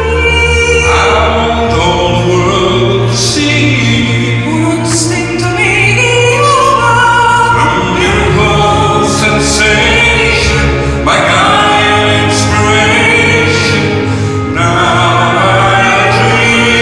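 A wind orchestra with clarinets playing, with a singer on microphone amplified through PA loudspeakers over it.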